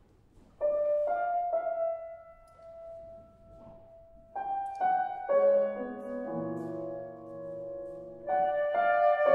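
Solo piano opening a classical song: a quiet single line of notes, then fuller, louder chords from about four seconds in.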